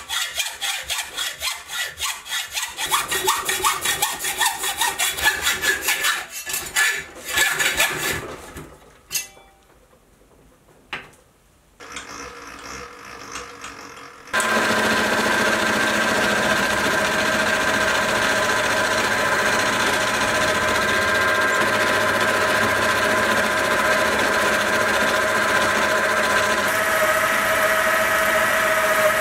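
Hand hacksaw cutting through a metal round bar held in a bench vise, with quick rhythmic rasping strokes for the first several seconds. About halfway through, a small benchtop milling machine starts and runs steadily with a whine, drilling into the bar.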